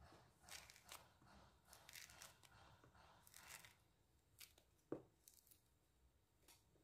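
Faint tearing of orange rind being pulled off an orange by hand, a string of short rips, with one sharp tap about five seconds in.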